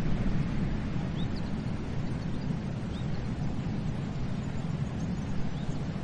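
Steady wash of sea surf, with a few faint, short bird chirps over it.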